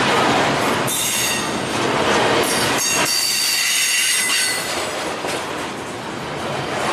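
Double-stack intermodal freight cars rolling past at close range, with a steady rumble of wheels on rail. From about one second in until about four and a half seconds in, a high-pitched squeal of steel wheels rides over the rumble.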